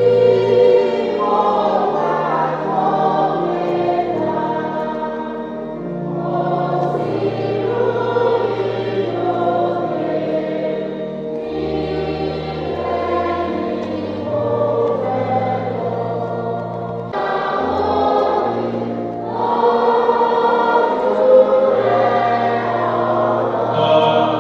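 Church congregation singing a hymn together, many voices with sustained notes and steady low accompanying tones.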